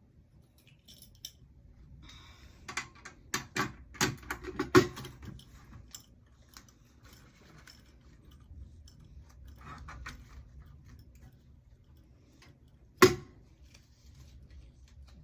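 Small objects being handled while packing: a run of clicks and rattles a couple of seconds in, softer rustling later, and one sharp knock near the end.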